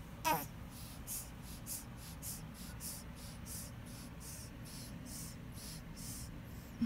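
Newborn baby gives a short squeaky grunt, then breathes through his nose in quick, faint hissing snuffles, about two or three a second.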